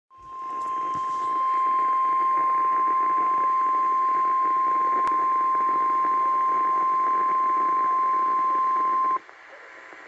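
Weather radio warning alarm tone: a single steady 1050 Hz tone broadcast over Environment Canada Weatheradio for the required monthly test. It plays through the radio's speaker over static hiss for about nine seconds, then cuts off suddenly, leaving only faint hiss.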